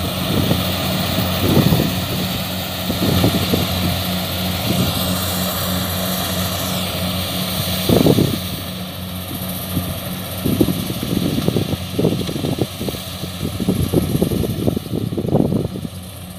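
Kubota combine harvester running steadily while harvesting rice: a constant engine drone with uneven low rumbling through it.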